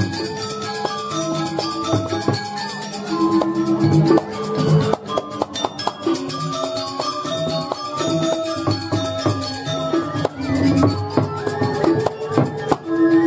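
Balinese gamelan accompanying a Jauk masked dance: bronze metallophones ring held notes at steady pitches over dense, fast cymbal clashes and drum strokes.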